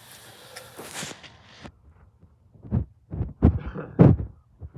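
A hiss for about a second and a half, then five or six dull thumps at uneven spacing, the loudest about four seconds in.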